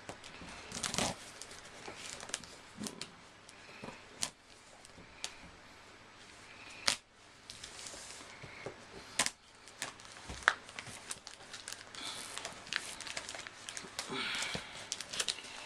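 Paper and packaging being handled by hand, crinkling, rustling and tearing as a parcel is opened, with scattered sharp clicks and crackles.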